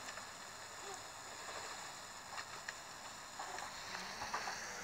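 Steady hiss and hum of an Airbus A380 cockpit's air-conditioning and avionics cooling, with several high steady whining tones and a few faint clicks.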